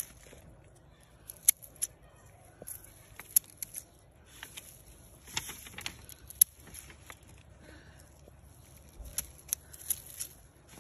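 Garden shears snipping through chamomile stems: several sharp cuts at an uneven pace, about one every second or two, with the plants rustling between them.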